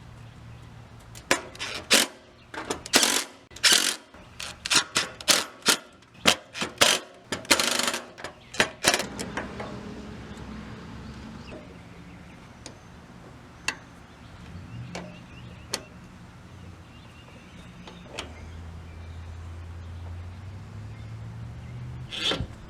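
Metal hand tool clicking in quick bursts for the first several seconds, then a few single clicks over a faint steady low hum, with one more short clatter near the end.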